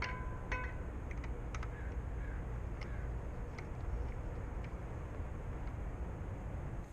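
A few light clicks and ticks over a steady low rumble.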